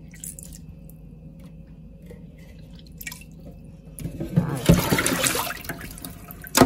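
Rinse water poured out of a bowl into a stainless steel sink, splashing loudly for about two seconds, with a short second splash near the end. Before it, only a low steady hum.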